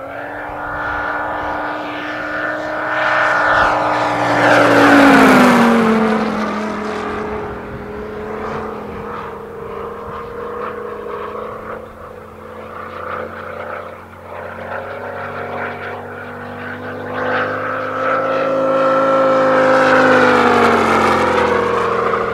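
A large-scale RC Sea Fury's 250cc Moki radial petrol engine, geared down through a planetary gearbox to a five-blade propeller, running at speed in flight. It makes two fly-by passes: the engine note drops in pitch as the plane sweeps past, about five seconds in and again near the end, and is loudest at each pass.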